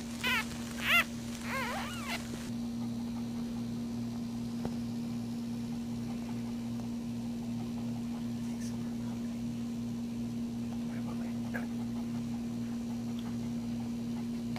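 Newborn puppy squealing: three short, high, wavering cries in the first two seconds. After that only a steady low hum with a few faint clicks.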